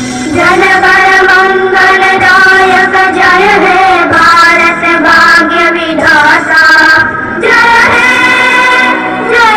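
A recorded song in which a high voice sings long held notes over instrumental backing, with brief breaks between phrases.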